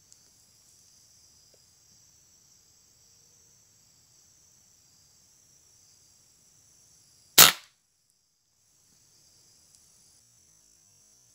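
A single shot from a scoped air rifle, a sharp crack about seven seconds in, over a steady high-pitched chorus of insects that falters briefly just after the shot.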